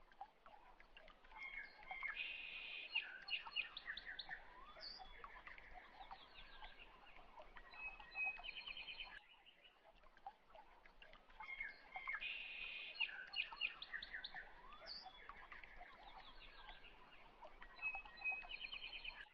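Faint birdsong: several birds chirping and trilling. The same stretch of song breaks off about halfway through and then repeats, like a looped recording.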